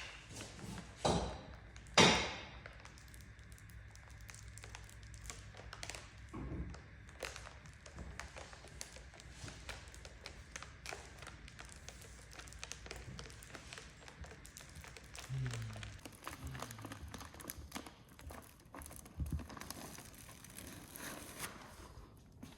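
Three short hissing bursts about a second apart near the start, the last one the loudest. Then it goes quiet apart from scattered faint taps and knocks of hand work.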